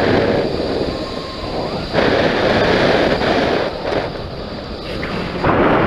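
Wind buffeting the microphone during a paragliding flight: a loud rushing noise that swells about two seconds in and again near the end.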